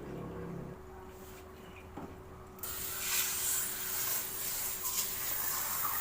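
Water jet spraying onto a window air conditioner to wash dirt out of it. It starts suddenly about two and a half seconds in and then hisses steadily.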